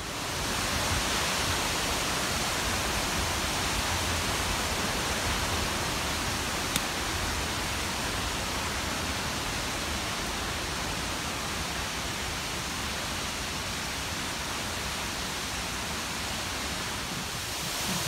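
Waterfall: falling water making a steady rushing noise.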